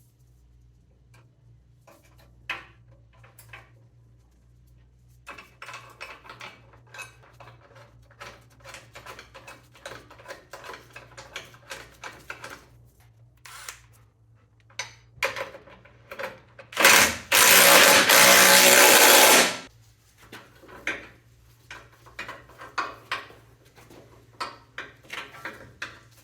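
Hand tools clinking and a ratchet wrench clicking in short runs on metal. About 17 seconds in comes a loud, even hiss lasting about three seconds. A low steady hum sits underneath.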